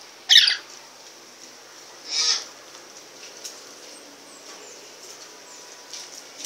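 Pet lories giving two loud, short calls, one just after the start and one about two seconds in, with faint chirps between.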